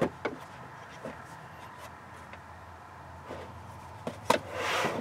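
Handling noise from a car amplifier being shifted by hand on a wooden shelf: a few light knocks, then a short sliding scrape near the end, over a faint steady hum.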